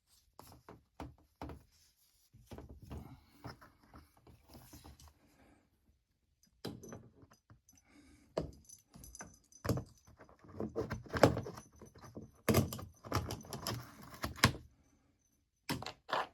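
Irregular metallic clinks, rattles and knocks as hands work a loosened sheet-metal access panel on an air-conditioning unit, growing busier and louder past the halfway point.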